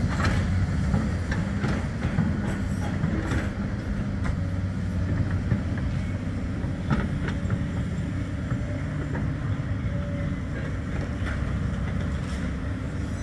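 Bombardier Flexity 2 electric tram rolling slowly along the rails and drawing away, with scattered sharp clicks from the wheels on the track over a steady low rumble.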